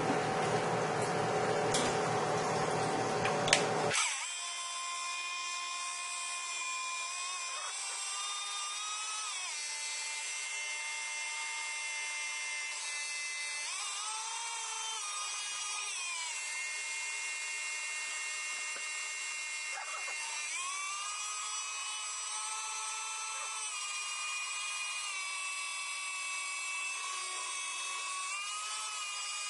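Stick blender motor running in a pot of hot-process soap batter, mixing the oils and lye solution toward trace. It is fuller and noisier at first, with a couple of clicks. From about four seconds in it becomes a thinner, steady high whine whose pitch rises and falls back every few seconds as the load on the blade changes.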